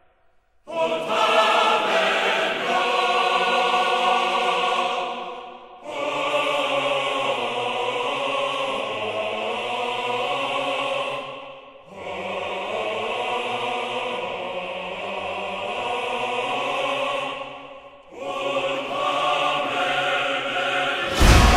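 Choral music: a choir singing long held chords in four phrases of about six seconds each, with a brief dip in level between phrases. A loud, sudden crash hits near the end.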